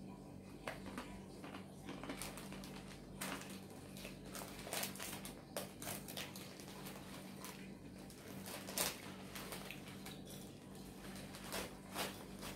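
Thin plastic bag crinkling and crackling as it is handled, in irregular short crackles, over a steady low hum.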